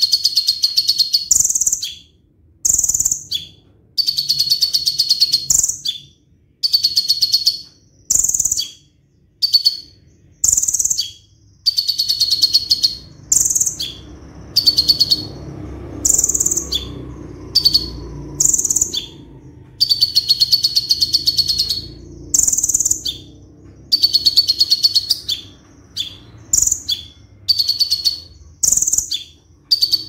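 Male copper-throated sunbird singing its rapid rolling song. Phrase after phrase of fast, high, buzzing trills, each a second or two long and ending in a few higher notes, with short pauses between.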